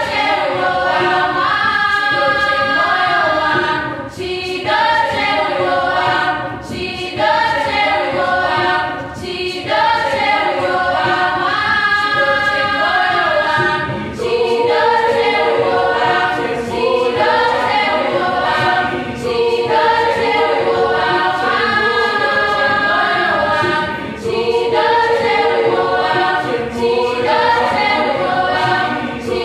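Mixed choir of boys' and girls' voices singing together in phrases a couple of seconds long, with short breaks between them. From about halfway, a long held note returns several times.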